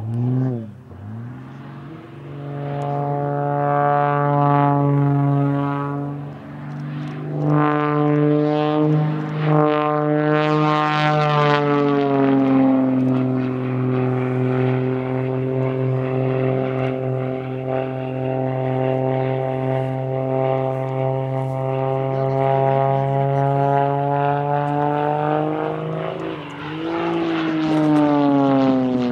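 Aerobatic propeller airplane's piston engine and propeller running in flight: a loud, steady, pitched drone. The pitch swoops down and up about a second in, then sweeps up and falls away again near the end as the plane manoeuvres.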